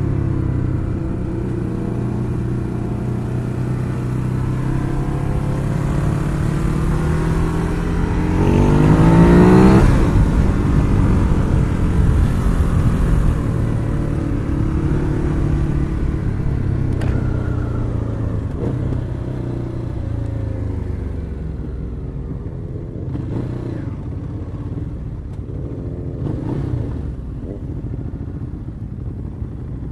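Ducati Hyperstrada's 821cc V-twin engine running under way. About eight seconds in it revs up sharply with a rising pitch as the bike accelerates, then eases off to a lower, steadier sound.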